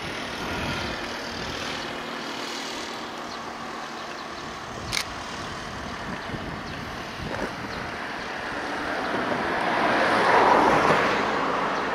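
Rushing vehicle noise that builds slowly, is loudest about ten seconds in and eases a little near the end, with one sharp click about five seconds in.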